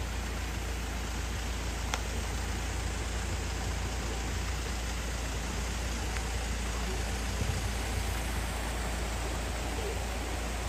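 Steady hiss of rain falling, with a low, steady rumble underneath and a single click about two seconds in.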